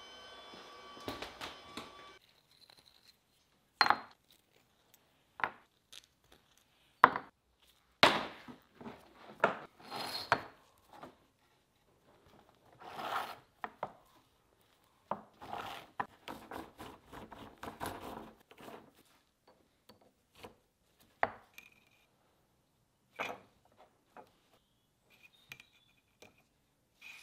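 Steel blade segments knocking and clinking against a wooden workbench and each other as they are handled and slid onto a steel wire cable, with short scrapes in between. The knocks come at irregular intervals, the loudest around a quarter of the way in.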